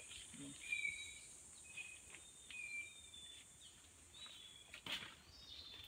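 Faint rainforest ambience: a steady high insect drone with short, repeated high chirps, and a single sharp click about five seconds in.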